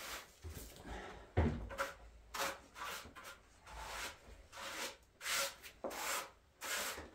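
Short scraping strokes of a tool spreading cement across a floor, repeated at uneven intervals about two a second.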